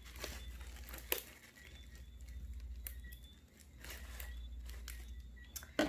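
Light rustling and crinkling of product packaging being handled, with a couple of sharp clicks, one about a second in and one near the end, over a faint steady low hum.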